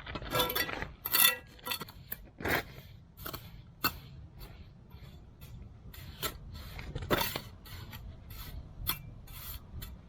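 Masonry hand tools, a steel trowel against wet concrete and stone, scraping and clinking in irregular strokes, with a few sharper ringing clinks.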